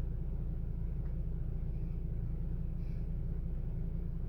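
Steady low rumble with no speech, unchanging throughout.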